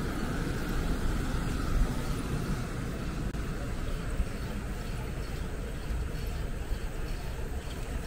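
Wind rumbling on the microphone and tyre noise from a bicycle ride. A faint higher hiss fades out about three seconds in.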